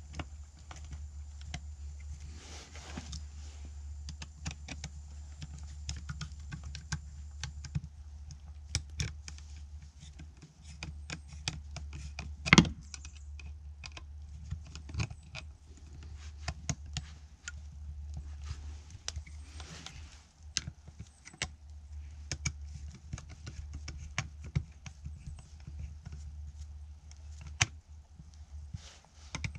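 Scattered small metallic clicks and taps as a screwdriver turns the terminal screws and wires are pressed into a 30 amp RV outlet, with one sharper knock about twelve seconds in. A steady low hum runs underneath.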